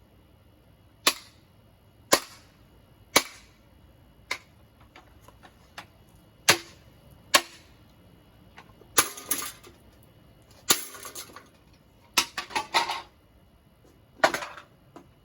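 Ceiling fan blades being struck hard with a stick. Sharp single cracks come about once a second at first, then several rattling clatters in quick bunches in the second half.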